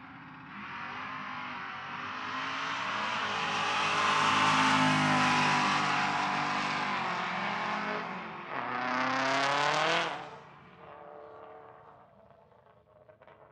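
Drag-racing car engine at full throttle down the strip, building to a loud peak about four to five seconds in. A second sharply rising surge in engine pitch follows, cutting off about ten seconds in.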